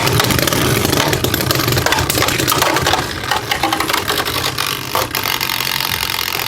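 Two Beyblade Burst spinning tops (Vise Leopard and Hell Salamander) whirring and grinding against each other in a stadium, with many sharp clicking hits as they clash. The sound eases a little about three seconds in.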